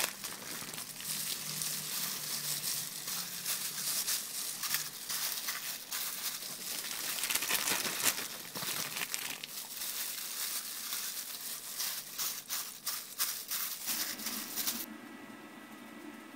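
Hands squeezing and rubbing pounded galangal marinade into chunks of silver carp, making wet squishing with a dense crackle in irregular bursts. About fourteen seconds in this gives way to the quieter, steady hiss of a gas burner flame under a covered glass pot.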